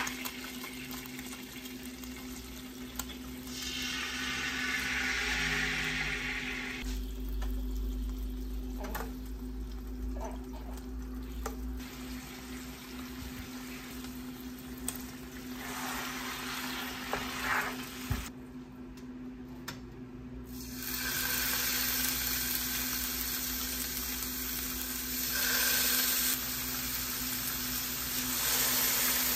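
Short ribs and salmon fillets sizzling as they fry in oil in pans, the hiss swelling and fading as pieces are added and turned, with a few clinks of tongs and spatula. A steady low hum runs underneath.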